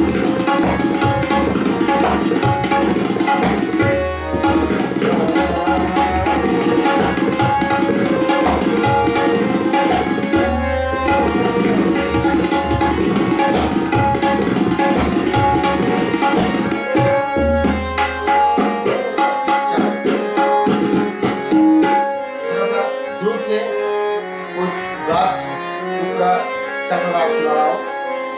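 Tabla solo in teental (16-beat cycle): fast, dense strokes on the tabla with deep bass strokes from the bayan a few times, over a harmonium playing the repeating nagma melody. Near the end the bass strokes drop away and the drumming thins while the harmonium carries on.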